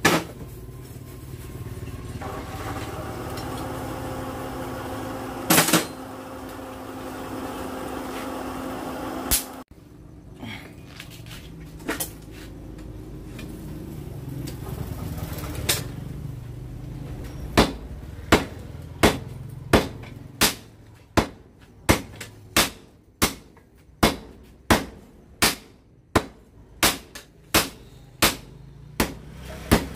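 Hammer blows on a red-hot knife blank of ball-bearing steel on the anvil: a steady run of sharp strikes, about three every two seconds, through the second half. Earlier a steady machine hum stops suddenly, with a few single knocks before the hammering starts.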